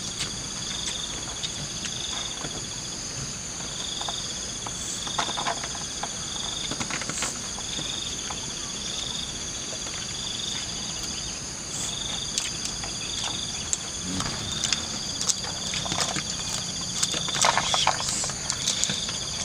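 A chorus of insects trilling steadily and high-pitched, one of them in pulses about a second long with short gaps between. Occasional soft clicks and rustles come through underneath.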